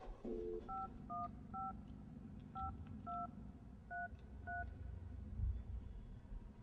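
Telephone being dialled: a brief dial tone, then seven short touch-tone key beeps at uneven intervals. A low thump comes about five and a half seconds in.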